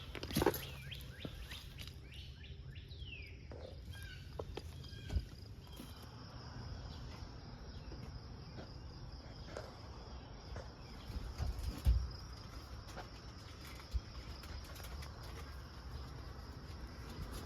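Outdoor ambience: a steady high-pitched insect drone with bird calls, including several quick falling chirps in the first few seconds. A few short knocks come through, the loudest about twelve seconds in.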